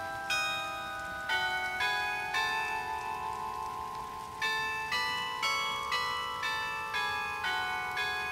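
Delacorte Music Clock's bells playing a slow tune of ringing struck notes, about two a second, with one long note held in the middle. Light rain hisses underneath.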